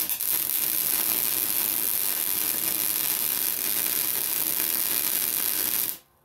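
Welding arc burning steadily as a bead is run, a hissing, sizzling noise that starts suddenly and cuts off abruptly about six seconds in.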